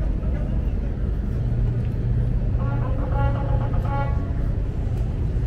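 Steady low rumble of road traffic on the bridge deck overhead, heard from the walkway underneath, with a short pitched call about three seconds in.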